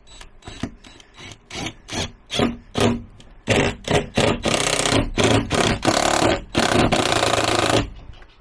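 Caulking gun being pumped to run a bead of silicone sealant: a string of separate squeeze strokes, about two a second, then a continuous rubbing, scraping noise for about three seconds that stops suddenly.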